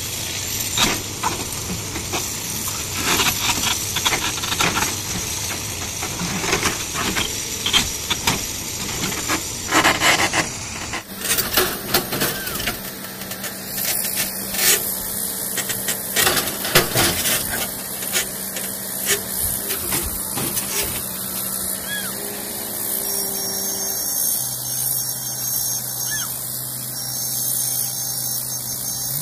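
Marble quarry machinery: a steady hiss and rasp with scattered knocks and clicks. The sound changes about eleven seconds in, and from then on a low, steady engine hum runs underneath.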